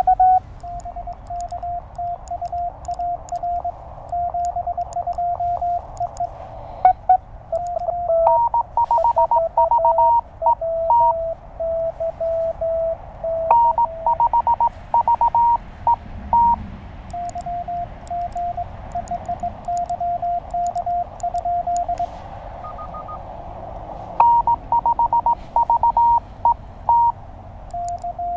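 Morse code (CW) exchange on a Penntek TR-35 QRP transceiver on 20 meters. The operator's own sending is heard as a steady-pitched sidetone, taking turns with a slightly higher-pitched incoming signal from the other station over band hiss, with faint paddle clicks while he sends.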